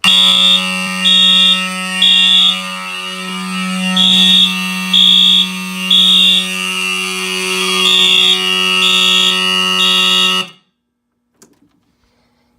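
Fire alarm system in alarm, set off by a smoke detector tripped for a test. A steady, low buzzing horn tone runs under a high beep sounding in groups of three, the temporal-three evacuation pattern. The whole alarm cuts off suddenly about ten and a half seconds in.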